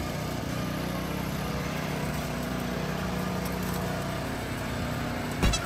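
Small petrol lawn mower engine running steadily, with one loud knock near the end.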